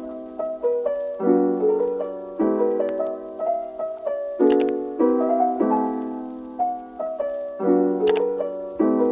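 Background music: a piano melody over chords that change about once a second, with two brief high clicks.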